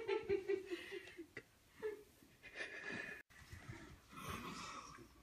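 Quiet, breathy chuckling: a quick run of short laugh pulses in the first second, then softer breathy laughter and breaths.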